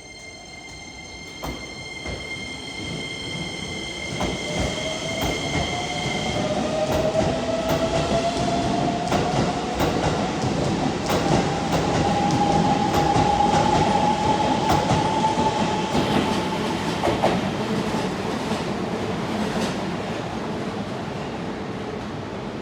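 A Shin-Keisei electric commuter train pulling away and passing close by. Its traction motor whine rises slowly in pitch as it gathers speed, with wheels clicking over rail joints. A steady high tone stops about six seconds in.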